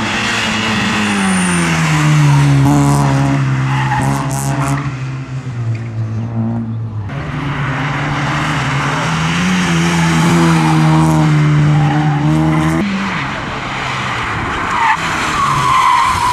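Rally cars' engines working hard through a tight tyre chicane: revs drop and hold, then another car's engine pulls up in pitch and lifts off abruptly. Near the end a car passes close with a short tyre squeal.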